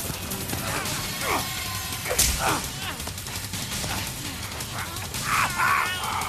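Fight sound effects: two people struggling, with short falling grunts and cries, a sharp hit a little after two seconds in, and more strained cries near the end, over background music.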